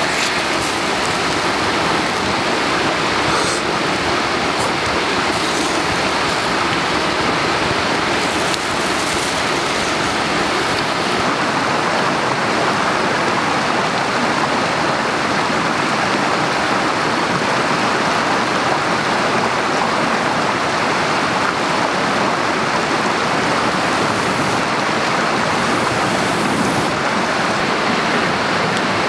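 Steady, unbroken rush of water, loud and even in level.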